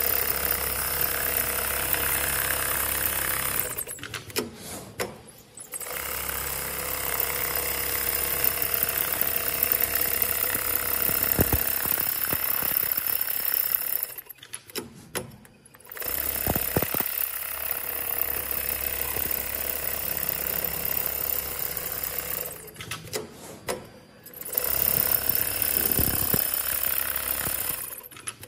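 FOXSEW FX25090 CNC programmable pattern sewing machine stitching steadily. Three times it pauses for about two seconds and goes much quieter, with a few clicks, before sewing resumes.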